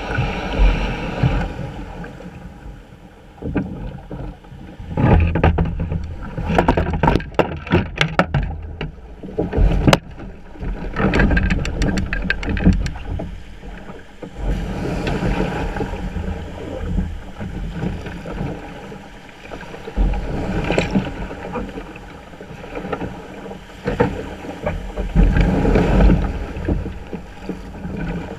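Breaking surf and water splashing against a kayak's hull as it is paddled out through the waves, rising and falling with each wave, with a run of sharp splashes and knocks in the middle.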